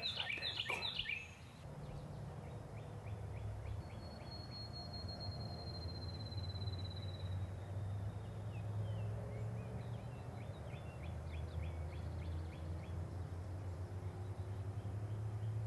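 An eastern wild turkey gobbles once, a quick rattling call in the first second or so. Songbirds follow with a thin falling whistle and scattered chirps, over a steady low rumble.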